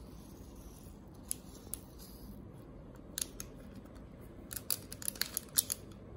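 Short, sharp plastic clicks and snips of a seasoning sachet being handled: two single clicks at first, then a quick run of them near the end.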